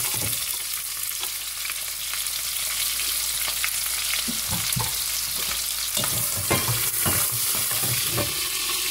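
Sliced onions sizzling in hot oil with fennel seeds and dried red chillies in a cast-iron pot, a steady frying hiss. A few sharp knocks against the pot come in the second half.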